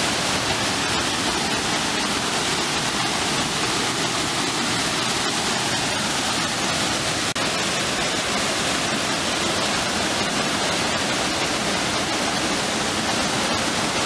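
Waterfall rushing steadily: white water pouring down a rocky chute into a pool, a constant even roar.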